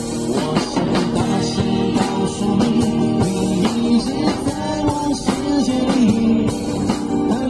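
Live Mandarin pop ballad: a man singing with acoustic guitar and a drum kit keeping a steady beat.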